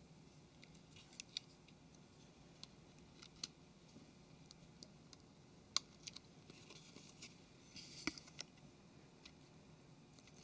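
Faint, scattered small clicks and taps, with a brief scratchy rustle about three-quarters of the way in. Fingers are handling a phone's headphone socket and flex circuit and pressing them into the plastic rear housing.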